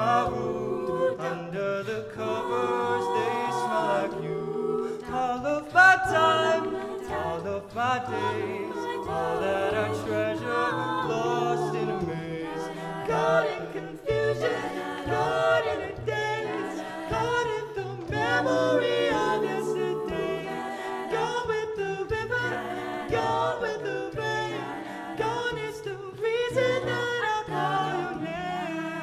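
Mixed-voice a cappella group singing in close harmony, backed by vocal percussion from a beatboxer on a handheld microphone.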